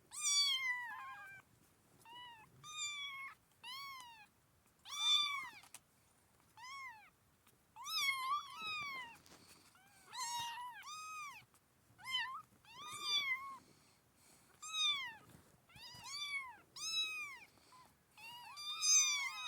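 Kittens mewing over and over in short, high calls, about one a second. Each call rises and falls in pitch, and some calls overlap.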